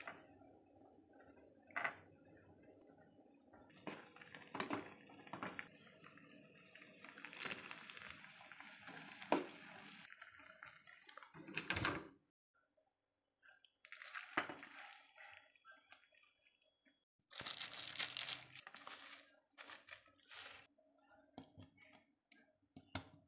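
A run of quiet kitchen handling sounds, with knocks, clinks and liquid splashes of food and dishes being handled, broken by short cuts to dead silence.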